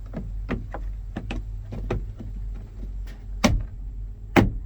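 Irregular clicks and knocks of door trim parts being handled and pressed into place on a truck door, about eight in all, with two sharper knocks near the end, over a steady low hum.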